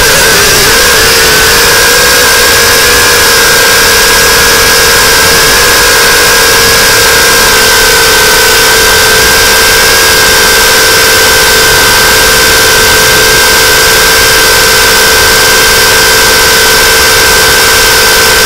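Mini quadcopter drone's motors and propellers whining steadily as it hovers, heard close up from the drone itself. The pitch wavers and then settles about a second in.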